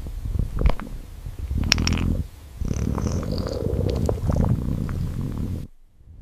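A cat purring, a steady low rumble broken by a few sharp clicks, cutting off abruptly near the end.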